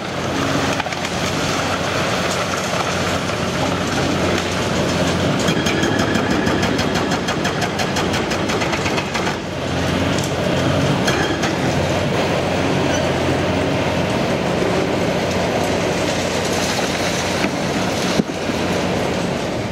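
Caterpillar 349E excavator's diesel engine running hard under load while its hydraulic breaker hammer pounds a concrete wall. A rapid, even run of hammer blows comes about a third of the way in, over the crash and rattle of falling concrete, and one sharp knock stands out near the end.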